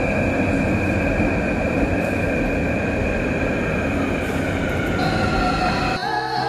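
Metro train running at the platform: a steady rumble with a steady high whine over it. Music cuts in near the end.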